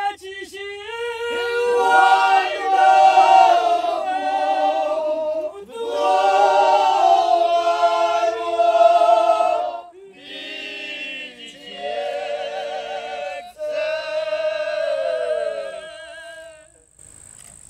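A group of górale (Polish highland) men singing a cappella, a folk song in high, wavering voices, in several phrases with short breaths between them.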